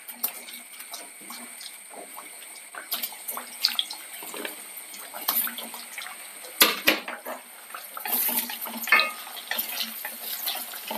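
Freshly added raw tapioca slices sizzling and crackling in hot coconut oil as they start to fry, the moisture in the slices boiling off. About two thirds of the way through there is one sharp knock against the pan.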